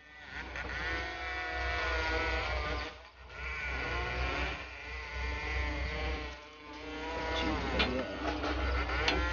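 A voice singing or chanting in three long, wavering phrases with short breaks between them, over a steady low hum.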